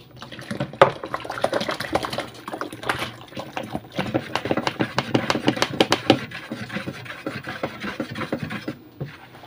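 Water poured from a plastic bottle splashing into a plastic basin of foamy liquid soap mixture, with a wooden spoon stirring and clacking against the basin. The splashing and stirring stop near the end.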